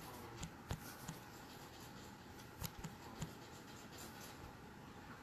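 Faint, scattered clicks and taps, about seven in the first three and a half seconds, over low room hiss.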